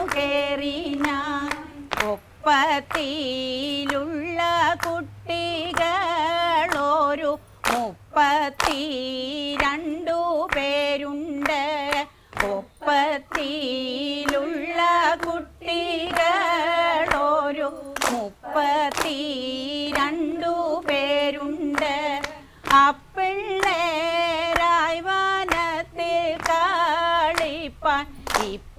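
Women singing a Kaikottikali song as one melody line, with sharp hand claps of the Kerala clapping dance every second or two.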